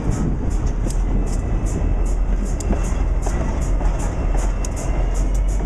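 Norfolk Southern diesel locomotives passing at close range: a heavy, steady low engine rumble with a rapid, uneven run of short high clicks over it.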